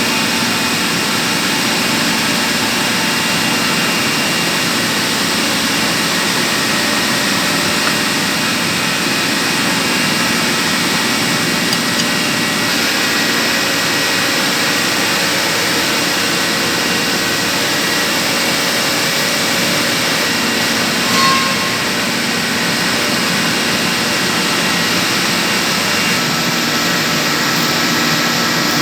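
Steady loud drone of running machinery, like the chiller plant equipment around the job, with faint steady whining tones through it. A short high chirp sounds about 21 seconds in.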